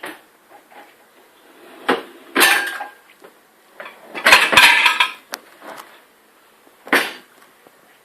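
Dishes and cutlery clinking and clattering as they are handled. There is a knock about two seconds in, then a short clatter, a longer and louder rattle about four seconds in, and a last clink near the end.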